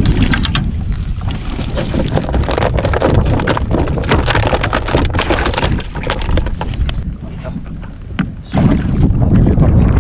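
Strong wind buffeting the microphone and choppy water splashing around a small boat, with scattered knocks and clatter. The noise eases for about a second near the end, then picks up again.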